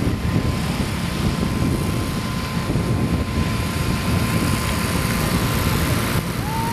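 Small single-cylinder engines of riding lawn tractors running under load as they race, a steady low engine drone with a thin high whine running through it. Near the end a second whine comes in rising and then holds.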